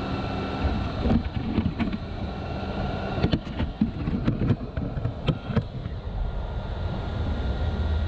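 Wind rumbling on the onboard camera's microphone inside a stationary RC truck, with a run of sharp clicks and knocks in the middle of the stretch.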